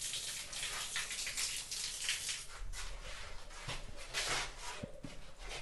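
Water running from a small wall-mounted tap and splashing, thinning out about two-thirds of the way through, with a couple of faint knocks near the end.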